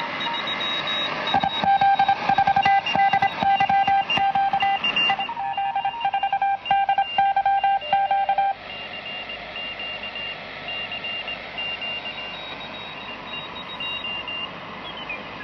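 Volna-K shortwave receiver's loudspeaker playing Morse code signals over static hiss: a strong keyed tone of about 800 Hz, with weaker stations keying at higher pitches. A little past halfway the strong signal stops, leaving fainter high-pitched Morse and hiss.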